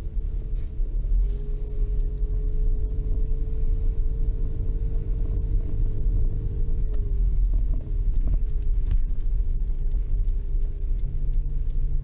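Car running on the road, heard from inside: a steady low rumble with an engine hum whose pitch dips about seven seconds in.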